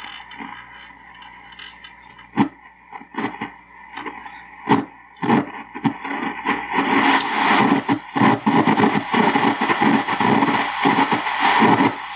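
Static from a Drake 2-B shortwave receiver's speaker: hiss broken by sharp crackles, growing louder and denser about halfway through.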